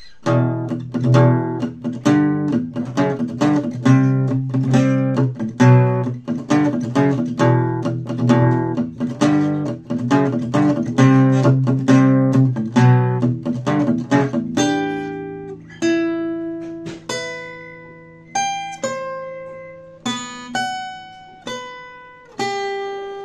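Acoustic guitar played solo: fast, even strummed chords, then about fourteen seconds in it switches to single picked notes of a lead melody, each one ringing out.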